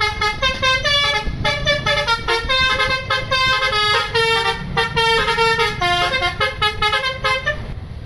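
Tour bus telolet horn, the multi-note musical horn of Indonesian buses, playing a fast tune of many short notes with a few longer held ones, stopping about half a second before the end. A low rumble runs underneath.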